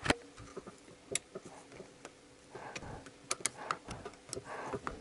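Several light, sharp clicks at uneven intervals, with brief soft rustling, as a compression ring is worked into its groove on a VAZ 2111 piston by hand.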